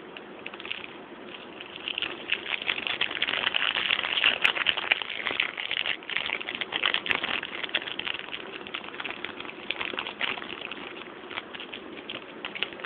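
Plastic cookie packaging crinkling as it is handled and opened: a dense, irregular crackle that grows louder about two seconds in and eases off near the end.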